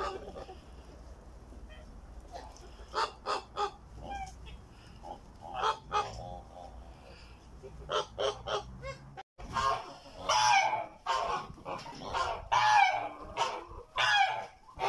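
Kholmogory geese honking: scattered short honks at first, then louder, longer honking calls from about 9 s in.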